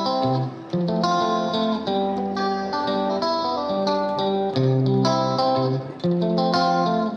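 Background music: a light tune of plucked string notes, one after another.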